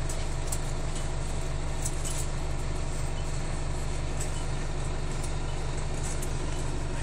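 Cabin noise inside an Alexander Dennis Enviro 350H hybrid bus under way: a steady low drone with a faint steady whine above it, and light rattles and clicks now and then.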